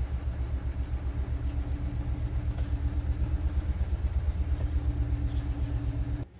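A small electric motor runs with a steady low hum and fast, even pulsing, then cuts off abruptly just before the end.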